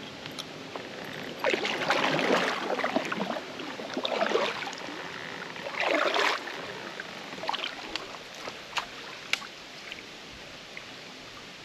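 Kayak paddle strokes splashing in the water, three strokes in the first half, over a steady lapping of water against the hull, followed by a few short sharp ticks.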